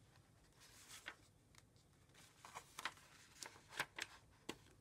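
Faint rustling and soft crinkling of a paperback picture book's page being turned by hand, a handful of small paper clicks.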